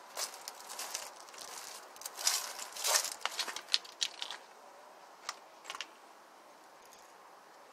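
Rustling and crinkling with scattered sharp clicks, busiest from about two to four seconds in, then a couple of isolated clicks; no engine is running.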